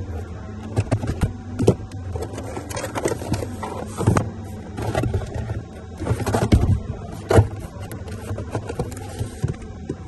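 Handling noises: irregular knocks, taps and scrapes as a cardboard parts box is handled and moved about on a car's footwell carpet, over a steady low hum.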